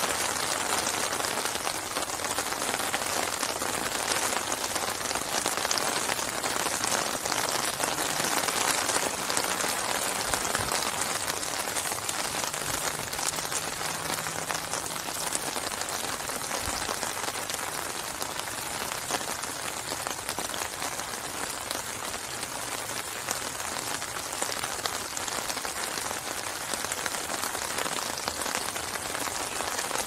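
Steady rain falling onto open water, an even hiss of many drops striking the surface.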